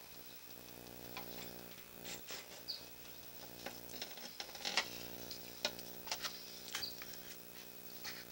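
Sewer inspection camera's push cable being pulled back through the drain pipe: scattered clicks and scrapes over a steady electrical hum from the camera rig, with a few short high chirps.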